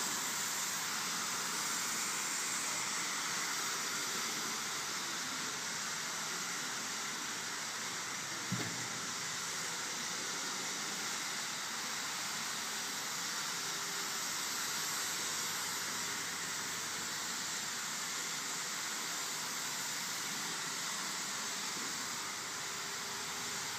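A steady, even hiss, with one faint click about eight and a half seconds in.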